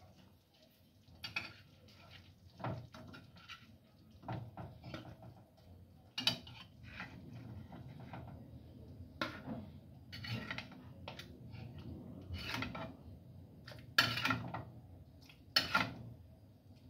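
Dishes and cutlery being handled: irregular sharp clinks and knocks of plates, pots and serving spoons, with softer scraping between them. The loudest clinks come near the end.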